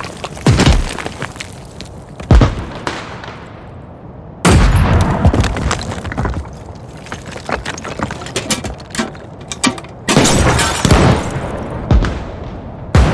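A series of explosions, about five sudden blasts, each followed by a long rumbling tail with crackling debris; the biggest come about four and a half seconds in and about ten seconds in.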